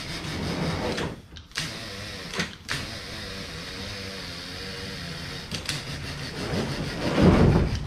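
A small electric motor whirring steadily as a crane hoists a crate small-block Chevy engine, with short breaks about one and two and a half seconds in. There is a louder low clunk or rumble near the end.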